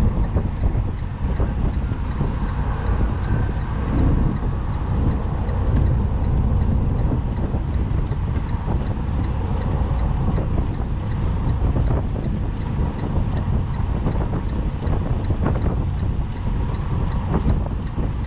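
Semi truck's diesel engine running at low speed as the rig is maneuvered: a steady low rumble.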